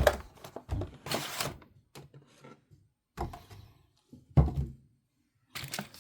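Packaging being handled as a model locomotive is taken out of its box: a series of separate knocks and thuds, the loudest a thump about four seconds in, with a short rustle about a second in.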